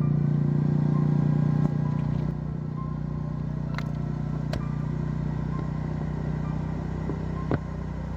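An engine running at a steady speed, with a low hum. A few sharp clicks come near the middle and near the end.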